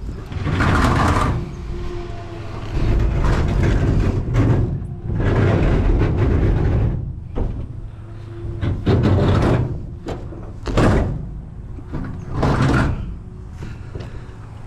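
Curbside scrap being handled and shifted: a series of about eight scraping, rattling bursts, each about a second long, over a steady low hum.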